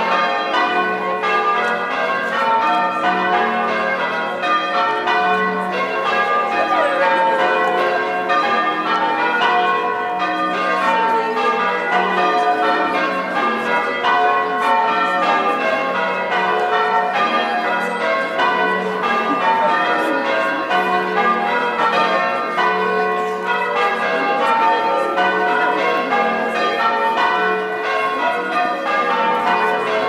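Peal of church tower bells being rung in changes: a steady, unbroken stream of overlapping bell strokes at a fairly even pace.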